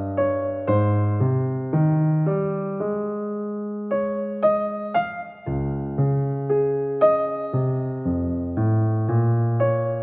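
Background piano music: gentle chords and melody notes struck at an even pace, with one chord held longer midway.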